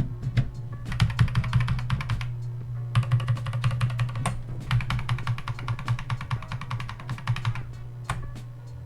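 Rapid computer keyboard key presses, a key hammered over and over in two long bursts with a short pause about two seconds in, as a freshly built PC is pushed into its BIOS at boot. A steady low hum runs underneath.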